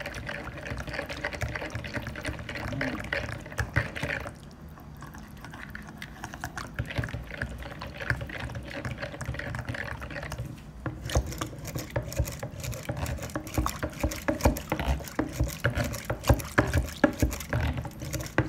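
Metal wire whisk beating a thin milk-and-egg batter in a plastic bowl, the liquid sloshing as the whisk scrapes and taps the bowl. The strokes go softer for several seconds after about four seconds in, then come back quicker and louder from about eleven seconds in.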